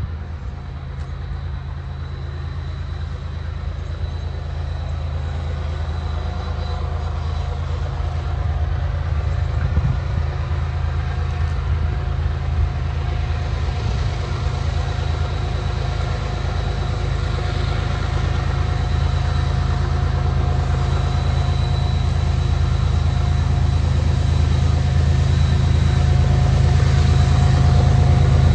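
CSX freight train's diesel locomotives working up a grade: a deep, steady engine rumble that grows steadily louder as the train approaches.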